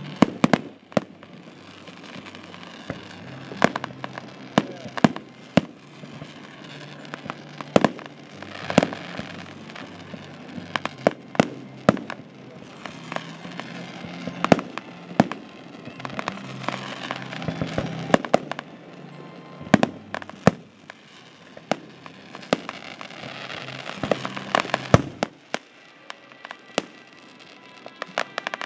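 Fireworks display: aerial shells bursting in an irregular run of sharp bangs, often two or three a second.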